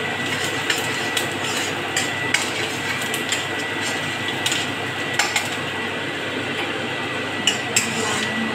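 A steel ladle stirring frying onion in an iron kadhai, scraping the pan and clinking irregularly against its side, over a steady hiss.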